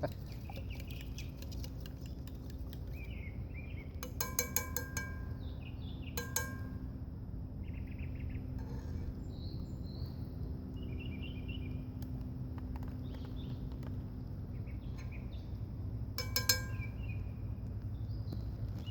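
Metal camp cookware clinking, with a quick cluster of ringing strikes about four seconds in, another about six seconds in, and a second cluster near the end. Small birds chirp on and off throughout.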